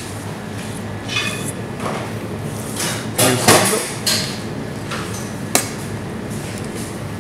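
A kitchen knife cutting into a slab of raw pork belly on a stainless steel worktop, with scraping and handling noises of the meat, loudest about three and a half seconds in, and one sharp knock on the steel about a second before the end. A steady hum runs underneath.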